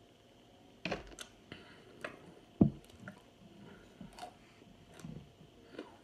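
Close-miked mouth sounds of someone eating hard baked cornstarch chunks: short, sharp crunches and squishy crackles at irregular intervals, with one louder thud about two and a half seconds in.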